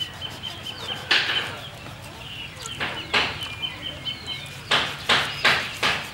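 Kitchen knife cutting and scraping a whole fish on a wooden chopping board: short rasping strokes, a few at first, then about two a second near the end.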